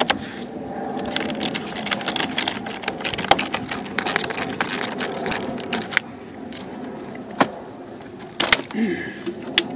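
Ratchet with a 10mm socket clicking rapidly while loosening the positive battery terminal nut, followed by a few separate metallic clicks near the end.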